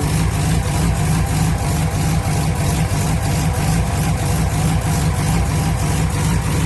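1965 Ford Thunderbird's 390 V8 idling steadily.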